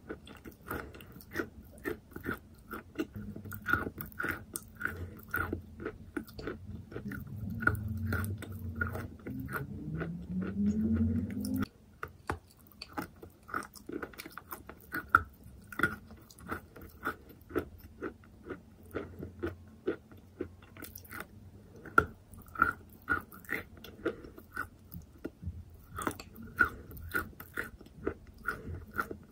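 Close-miked chewing of wet, pasty chalk: soft crunches and wet mouth clicks, a few a second. A low hum underneath rises in pitch and stops abruptly about twelve seconds in.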